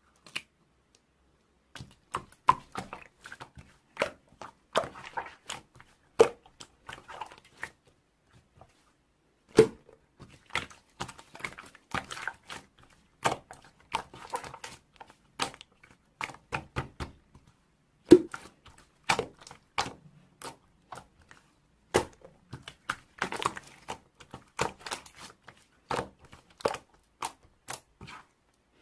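Slime being squished, pressed and poked by hand, giving a dense run of sharp sticky pops, clicks and crackles, with a brief pause around eight to nine seconds in.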